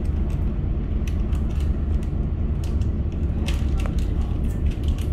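Star Ferry's engine running with a steady low drone, with scattered light clicks and creaks over it.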